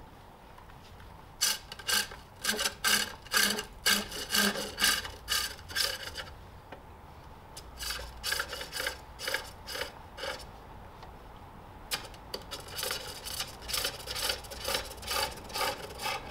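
A hand-forged hook tool shaves jacaranda on a spring pole lathe in quick, rhythmic cutting strokes. Each stroke is a scraping rasp as the wood spins into the edge. The cutting comes in three runs, with short pauses between them.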